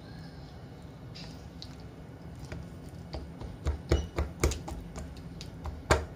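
Metal fork stabbing raw pork in a bowl of marinade to tenderize it. From about halfway through come irregular sharp taps and clicks of the fork on the meat and the bowl, a few a second.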